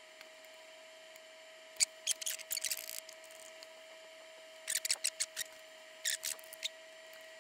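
Light clicks and scrapes of metal tweezers and a soldering iron tip against a small capacitor and circuit-board pads, in short clusters about two, five and six seconds in, over a faint steady hum.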